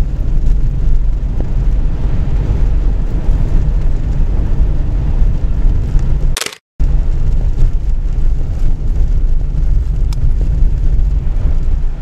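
Steady low rumble of a car driving on a snow-packed highway, heard from inside the cabin. A short crackle a little past halfway is followed by a moment of silence before the rumble picks up again.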